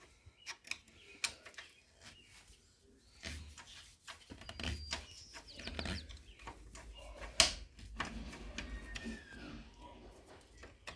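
Scattered light clicks and scrapes of metal hand tools working an ignition lock cylinder clamped in a vise, as it is forced to turn, with one sharp metallic click about seven seconds in.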